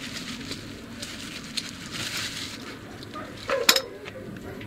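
Hands packing grease into a truck wheel-hub bearing: soft, irregular scraping and crackling handling sounds, with a short cluster of sharp clicks about three and a half seconds in.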